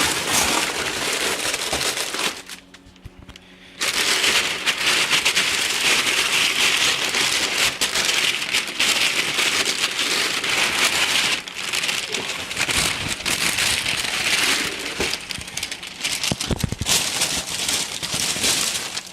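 Packing material crinkling and rustling as the second rifle is unwrapped and lifted out of its shipping box, with a brief pause about three seconds in.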